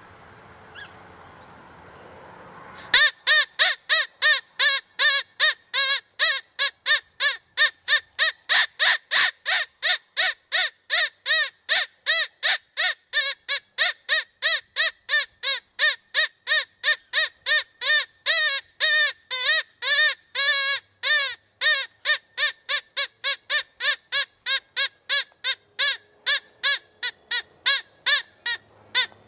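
Rabbit squealing call: a fast, very regular series of short high cries, each rising and falling in pitch, about three a second, starting abruptly about three seconds in.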